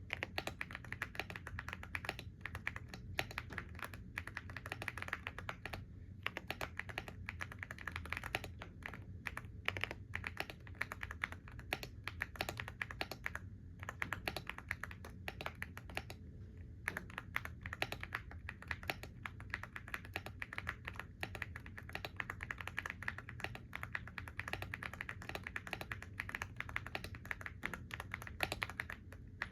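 Continuous typing on a computer keyboard: a fast, irregular run of key clicks with brief pauses now and then.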